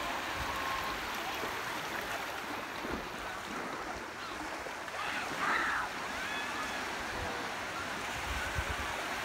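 Small waves washing and breaking in shallow beach water, with hand-splashing and a brief raised voice about halfway through.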